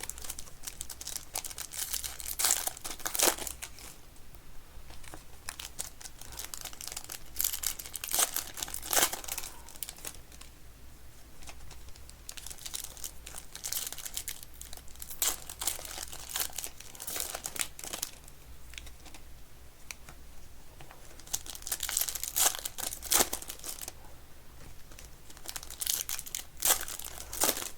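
Packaging of a Panini football trading card mega box and its packs being torn open and crinkled by hand, in irregular bursts of rustling, with the loudest tearing about two to three seconds in, near the middle of the first third, and twice more near the end.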